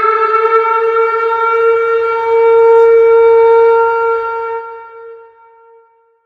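Tornado warning siren wailing: its tone climbs slightly to a steady pitch, holds there at its loudest, then fades away over the last couple of seconds.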